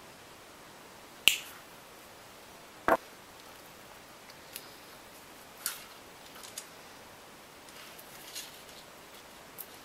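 Two sharp clicks of small pliers working the taped wire of a flower wreath, about a second and a half apart. Several lighter ticks and taps follow as fingers handle the wire and foam flowers.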